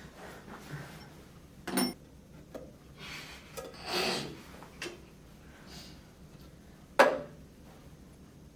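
Objects being handled and taken out of a box: rubbing and rustling with a few knocks, the sharpest about seven seconds in.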